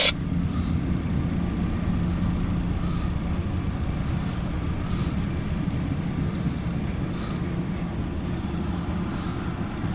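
Norfolk Southern intermodal freight train rolling past: a steady low rumble with a steady hum running under it and faint hissing marks every couple of seconds.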